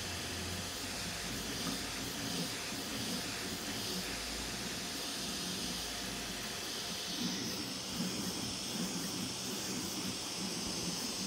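FDM 3D printer printing a fuzzy-skin wall: the cooling fans give a steady hiss over the uneven buzzing of the stepper motors as the print head jitters along its path.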